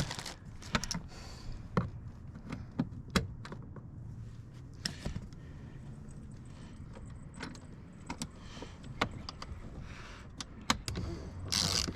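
Irregular small metallic clicks and clinks of a Torx screwdriver and loose screws during work on a car door, with a brief rustle near the end.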